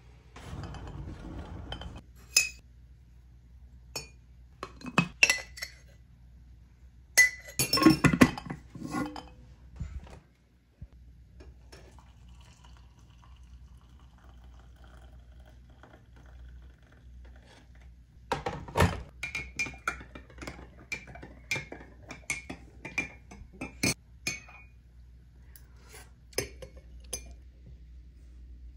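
A metal spoon scooping and clinking against a glass mug, then a quieter stretch as hot water is poured in from an electric kettle. Near the end the spoon stirs round the mug in a quick, even run of ringing clinks against the glass.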